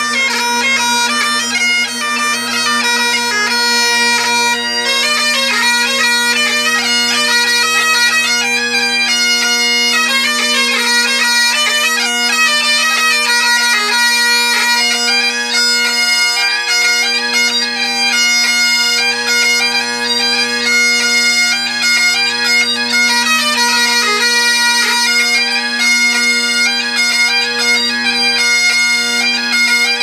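Two Great Highland bagpipes played together: steady drones sounding underneath a quick, ornamented chanter melody that runs without a break.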